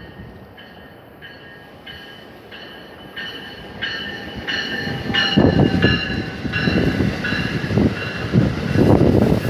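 Bell on an arriving NJ Transit push-pull train ringing steadily, about one and a half strokes a second, growing louder. From about halfway in, the low rumble of the train and gusts of wind swell up and become the loudest part.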